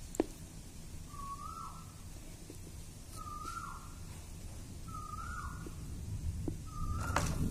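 A bird calling four times, about every two seconds, each call a short tone with a dip at its end. There is a sharp click a moment in, and clicks and leaf rustling near the end as the mango branch is handled.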